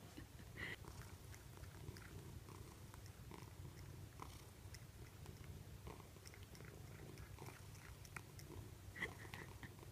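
Near silence: a domestic cat's faint small mouth clicks, with one slightly louder short sound about nine seconds in.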